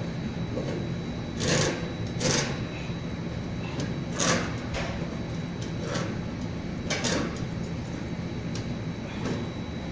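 Short knocks and scrapes of tools and metal parts being worked on a giant rice cooker during removal of its heating element, four separate strikes spread over several seconds, over a steady background hum.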